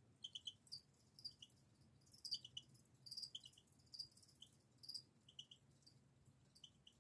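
Faint chirping of feeder crickets: short chirps of two or three quick pulses at a steady high pitch, repeating irregularly about once or twice a second.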